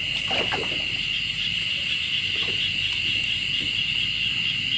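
Crickets trilling together in a steady, high-pitched chorus that doesn't let up.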